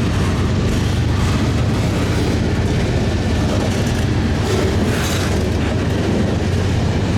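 Freight train's cars rolling past close by: a steady, loud rumble of steel wheels on the rails.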